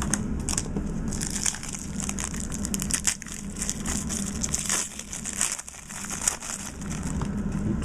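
Foil trading card pack wrapper crinkling and crackling as it is handled and opened, in quick irregular clicks over a steady low hum.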